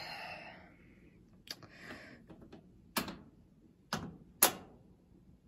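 Timer dial of a Kenmore laundry center's dryer being turned by hand, clicking four separate times, the last three the loudest.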